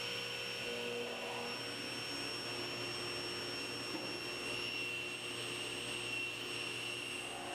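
Table saw running with a steady whine while leg blanks are ripped to final width.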